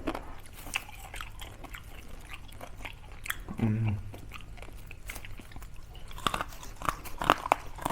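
Close-up eating sounds of crispy fried pork mesentery (chicharong bulaklak): scattered crunchy bites and chewing, with a denser run of crunches near the end. A short hummed "mm" comes about three and a half seconds in.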